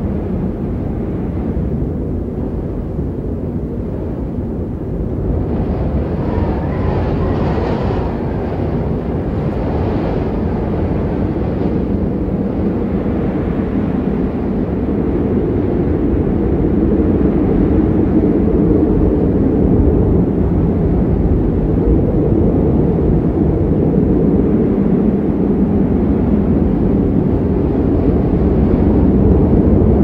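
Strong wind blowing, a steady low rushing rumble, with a brighter gust about six to twelve seconds in and growing a little louder after the middle.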